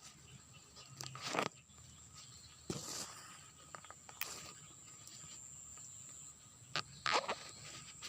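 Insects give a steady, thin, high-pitched buzz that stops about two-thirds of the way in. A handful of short rustling noises come over it, the loudest about a second and seven seconds in.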